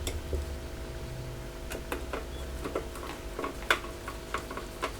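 Small irregular clicks and ticks of a screwdriver and screws being fitted into the pedal's thin bent-metal case, with one sharper click about three-quarters of the way through. A faint steady hum lies underneath.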